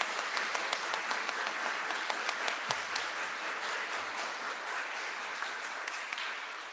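Congregation applauding, a dense patter of many hands clapping that tapers off near the end.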